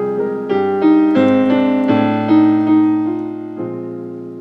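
Piano playing a slow passage of notes and chords, each struck and left to ring. The last chord, about three and a half seconds in, is held and fades away.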